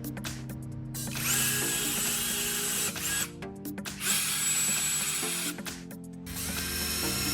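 A small electric power tool running in three bursts of a few seconds each, over background music.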